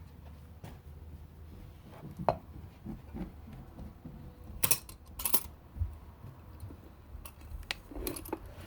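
A coffee container being opened and handled: a handful of separate clicks and knocks of the lid against the container, a few seconds apart.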